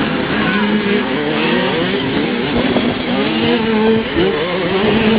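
Small 65cc two-stroke motocross bike engines revving up and down through the gears as they race, several engine pitches rising and falling over one another.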